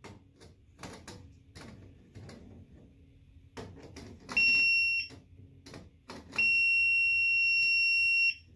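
Ideal circuit breaker finder receiver being passed over a breaker panel: faint clicks, then a high, steady beep lasting under a second about four seconds in, and a longer beep of about two seconds near the end. The beeping signals that it has found the breaker carrying the transmitter's signal.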